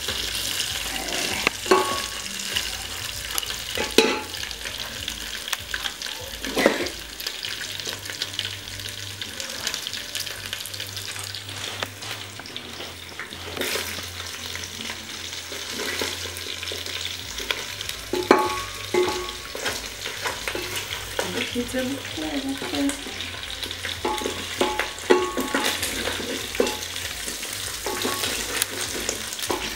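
Meat frying and sizzling in a metal pot while a wooden spoon stirs it, with the spoon knocking and scraping against the pot every few seconds.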